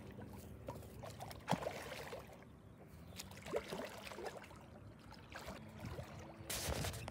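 Hooked sturgeon thrashing at the lake surface close to the bank, sloshing and splashing the water. The splashing is faint, with a few sharper splashes and a longer burst of splashing near the end.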